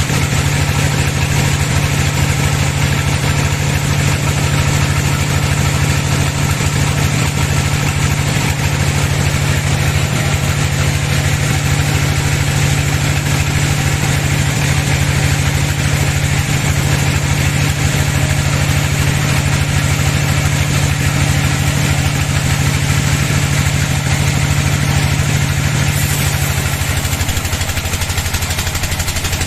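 Sawmill bandsaw machinery running with a steady, loud engine-like drone. Near the end the drone drops to a lower pitch.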